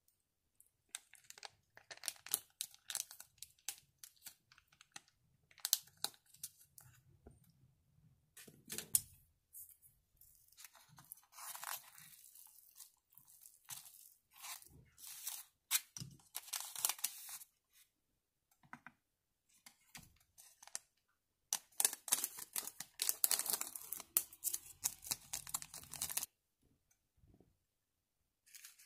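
Crinkling and tearing of plastic seasoning packets, and chopsticks mixing sauce through soupless instant ramen noodles in a bowl, in a run of crackly, rustling bursts. Near the end a packet rustles again.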